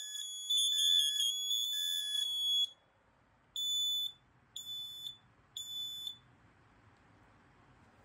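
FireX FADCM smoke and carbon monoxide alarm's piezo horn sounding in test. It gives a shrill tone for about two and a half seconds, then after a short pause three short beeps about a second apart in the temporal-three fire pattern, then stops.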